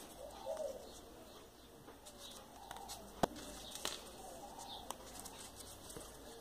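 Faint cooing of a bird, like a dove, heard a few times, with a single sharp click a little over three seconds in.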